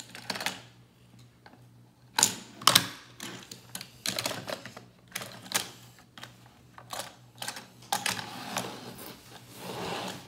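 Irregular clicks and clacks of a plastic Hot Wheels City Downtown Burger Dash playset and a die-cast toy car being handled and knocked on a wooden table, with the loudest clacks a little after two seconds in.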